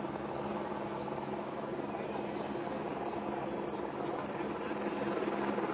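Steady drone of an engine, with a held low hum that swells slightly near the end.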